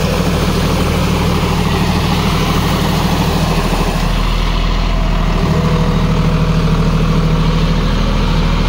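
John Deere 5050D tractor's three-cylinder diesel engine running steadily under load as it drives a rotavator through wet paddy mud. Its note shifts slightly about five seconds in.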